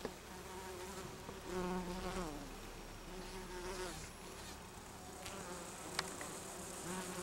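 Bees buzzing as they forage on flowering lavender, with several passing close, their buzz swelling and bending in pitch as they fly by.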